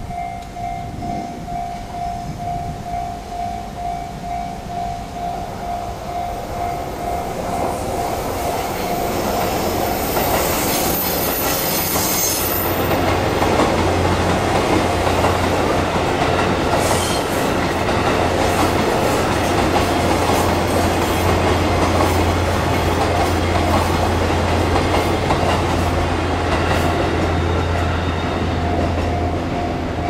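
Japanese level-crossing bell ringing in a quick repeating ding while a JR East E233-series electric commuter train approaches and passes. The train's running noise on the rails builds up and drowns the bell from about ten seconds in, with a brief thin high squeal and then a steady low hum. The bell is heard again near the end.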